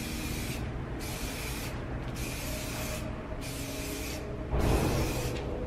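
Aerosol spray paint can hissing in repeated short bursts, roughly one a second, as black paint is sprayed onto a coat rack. About four and a half seconds in there is a louder, brief low bump.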